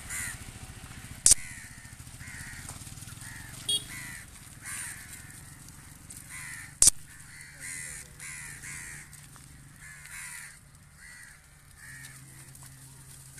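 Crows cawing over and over, a short call every half second to a second. Two sharp clicks, about a second in and again about seven seconds in, are the loudest sounds.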